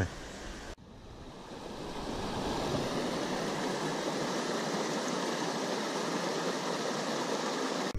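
Creek water rushing steadily over rocks in a shallow riffle, rising over the first couple of seconds and then holding steady.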